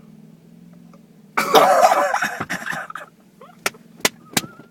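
Steady low drone of a riding lawnmower engine, with a loud cough-like burst from a person about a second and a half in, followed by a few sharp clicks near the end.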